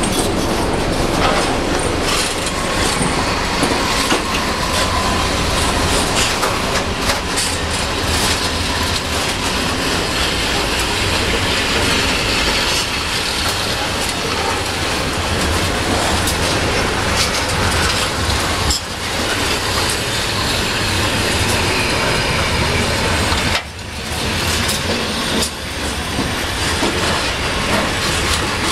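Freight wagons of a coal train rolling past close by: a steady loud rumble of steel wheels on rail with repeated clicking over the rail joints, dipping briefly twice in the second half.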